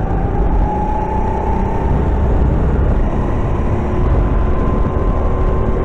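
Rental kart running on track, heard from on board: a steady whine climbs slowly in pitch as it gathers speed, over a constant low rumble.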